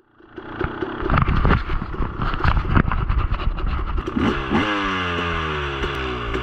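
2016 Husqvarna TE250 two-stroke dirt bike engine running at a standstill, with knocks and clatter from the camera being handled over it for the first few seconds. About four seconds in the engine is blipped and its pitch then falls steadily as the revs drop back.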